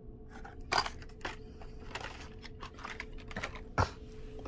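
Hot Wheels cars in plastic blister cards being handled and set down in a cardboard case: a string of light, irregular clicks and rustles, with two louder clacks, one under a second in and one near the end.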